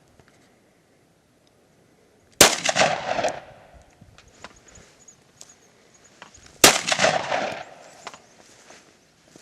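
Two rifle shots about four seconds apart, each a sharp crack followed by about a second of rolling echo.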